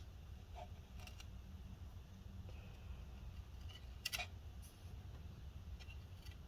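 Faint handling noises: a few light clicks and ticks, the loudest about four seconds in, as small rubber pads are peeled off a laptop cooling fan's screw mounts, over a low steady hum.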